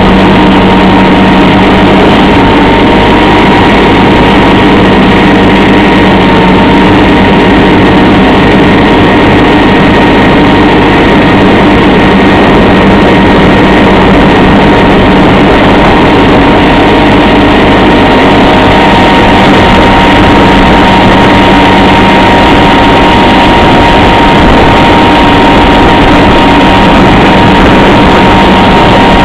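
Case 446 garden tractor's 16 hp Onan twin-cylinder engine running loud and steady under throttle, with the mower deck engaged and cutting grass. A steady high whine sits over the engine note.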